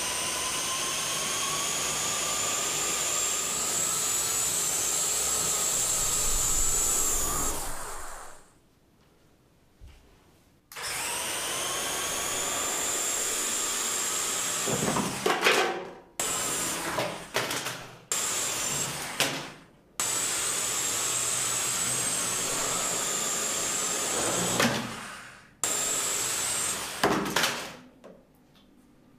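Lego electric motors spinning the propellers of a homemade quadcopter, giving a steady electric whine. It runs for about eight seconds and stops, then starts again and switches on and off in several short bursts. It then runs steadily for a few seconds more before a last few short bursts near the end.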